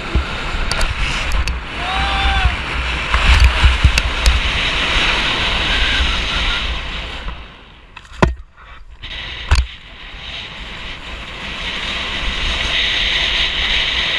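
Skis sliding and scraping fast over wet spring snow, with wind buffeting the helmet camera's microphone. In the middle the noise dies down briefly and two sharp knocks come a little over a second apart as the skier brushes past a small conifer, then the sliding noise builds again.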